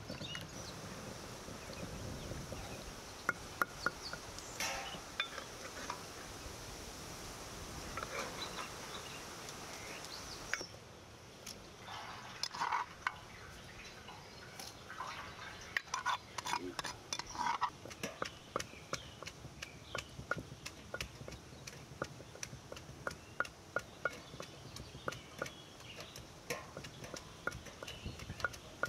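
Pomegranate seeds being crushed wet in a stone mortar with a wooden pestle, and pulp being worked in a perforated steel colander over a pot. There are scattered knocks and squelches at first, then a quick run of small clicks and scrapes against the metal in the second half.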